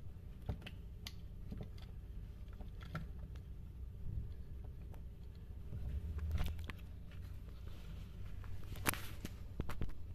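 Small parts of an electric chain-sharpening grinder clicking and knocking as they are handled and fitted back into its open plastic housing during reassembly, over a low steady hum. The sharpest click comes about a second before the end.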